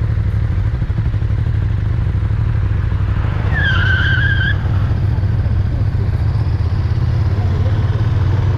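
KTM 1290 Super Duke R V-twin engine running at low, steady revs, heard from the onboard camera. A brief high squeal lasting about a second comes about four seconds in.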